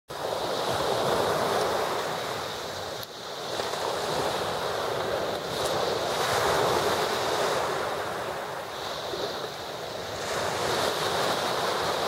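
Small sea waves washing, swelling and easing every few seconds.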